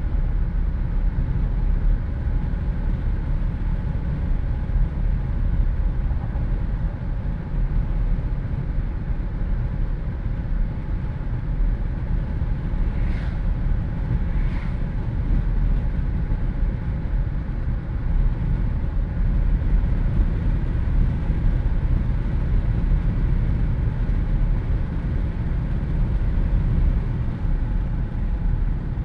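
Jeep Wrangler driving with the windows down: steady wind rushing through the open cabin over a low rumble of road and engine noise. Two brief higher-pitched sounds come about halfway through.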